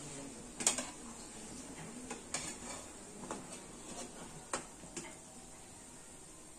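Steel slotted spoon clinking against the iron kadhai and a steel plate as fried lauki kofte are lifted out of the oil: about half a dozen sharp clinks, the loudest about a second in, over a faint steady hiss of the frying oil.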